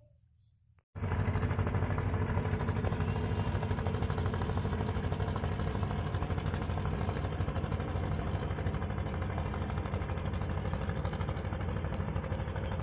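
Motor boat engine running steadily with an even, fast chugging, starting about a second in after a brief silence.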